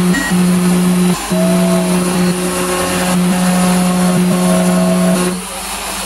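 CNC router milling wood: the stepper motors hum in steady tones that stop briefly and change pitch as the axes move, over the constant hiss of the rotary tool spindle cutting.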